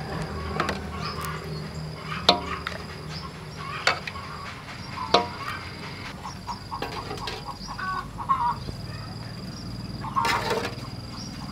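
Metal ladle knocking against plastic containers and the rim of a pot while ice cream mixture is ladled out: several sharp knocks, the loudest about two, four and five seconds in. Birds call in the background.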